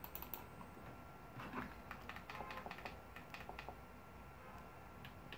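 Faint, scattered clicks of remote-control buttons being pressed, a few near the start and a quicker run of them between about two and four seconds in.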